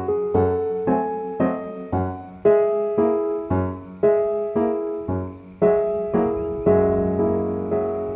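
Background piano music: notes and chords struck about twice a second, each ringing and dying away.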